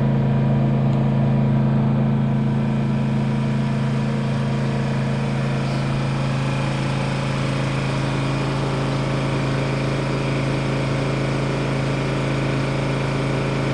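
Honda generator's engine running steadily under a moderate charging load, a constant even drone with no change in speed.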